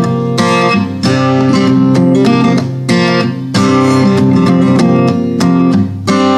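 Takamine acoustic guitar strummed in chords, in a steady rhythm of about two strokes a second.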